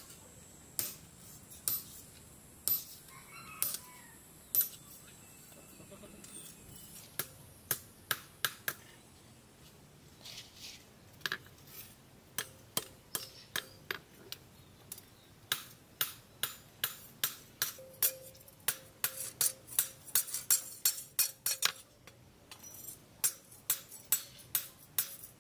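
Hand hammer striking a steel knife blank cut from a car leaf spring on a post anvil, giving sharp metallic blows. They come about a second apart at first, then quicken into a fast run of several blows a second, break off briefly near the end and start again.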